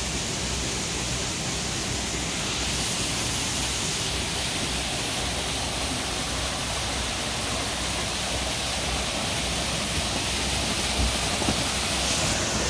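Steady rushing noise with no distinct events, its hiss shifting slightly about two and a half seconds in and again near the end.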